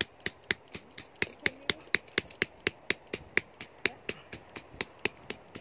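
The hammer head of a multitool taps a wooden stake in quick, even blows, about four a second, driving it into the ground.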